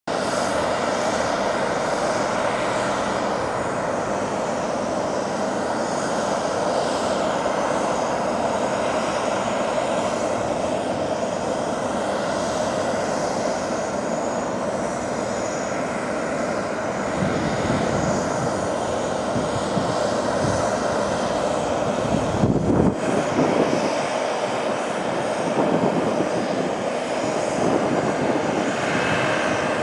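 Steady aircraft engine noise: a constant hum that holds one pitch, with a few louder low rumbles around twenty-two seconds in.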